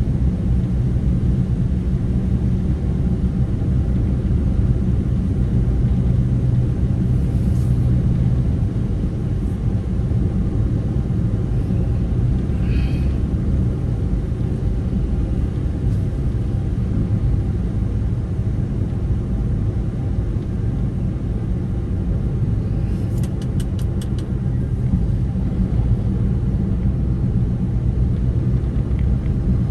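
Steady low rumble of a vehicle driving along a road, engine and tyre noise, with a faint short chirp about halfway through and a quick run of faint ticks later on.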